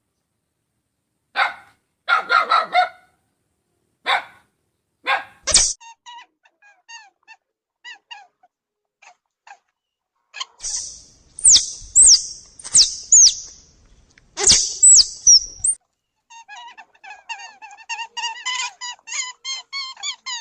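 A pet animal's calls: a string of short, high-pitched squeals and yelps, the loudest falling sharply in pitch, bunched in two runs with a gap between. Light background music with a regular pattern of notes plays in the gaps and returns near the end.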